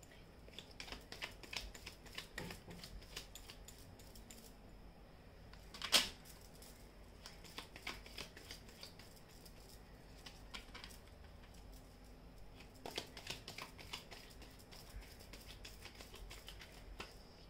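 Faint, irregular clicking and light rustling of tarot cards being handled, with one sharper click about six seconds in.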